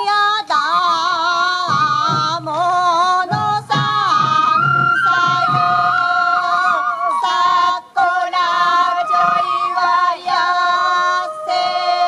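Sansa odori folk music: a voice sings a drawn-out, ornamented min'yo melody over taiko drum beats. The drumming falls away about halfway through.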